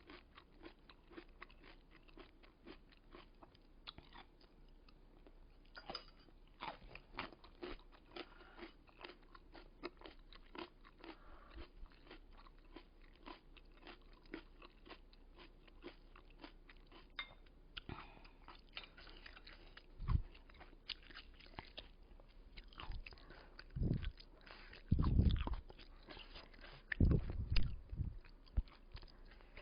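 Close-up chewing of kkakdugi, cubed radish kimchi: many crisp, wet crunches as the raw-textured radish is bitten and ground between the teeth. Several loud low thumps come in the last ten seconds.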